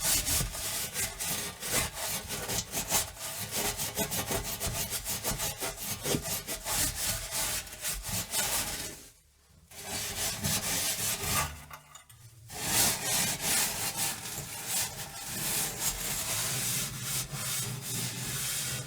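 Scrubbing an oven surface: quick back-and-forth scouring strokes, a rasping rub that goes on and on. Two brief pauses come about nine and twelve seconds in.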